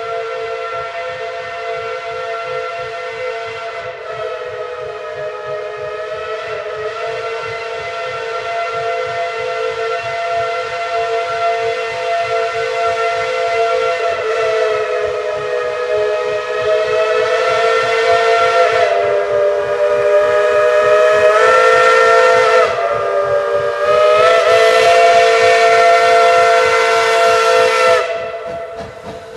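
Steam locomotive whistle (Tweetsie Railroad No. 12, a 4-6-0) held in one long multi-tone chord that grows louder as the train approaches. Its pitch sags and recovers a little past the middle, and it cuts off sharply near the end.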